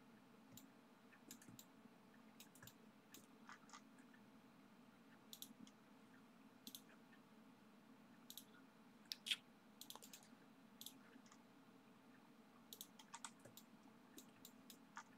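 Faint, irregular clicks of a computer mouse while selecting edges in CAD software, over a faint steady room hum.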